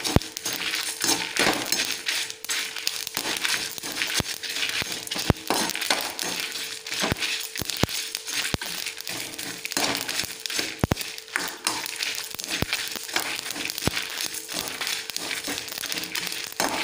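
A metal spoon stirring whole spices, coriander seeds, dried red chillies and curry leaves, dry-roasting in a kadai without oil: a steady rustle of seeds scraped over the pan, with frequent sharp clinks of the spoon against the metal.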